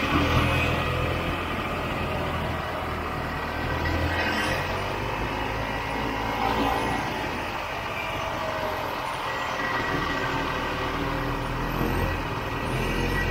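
1967 Ski-Doo Olympic snowmobile's air-cooled two-stroke engine running while the sled moves along, its pitch dipping and rising a little with the throttle.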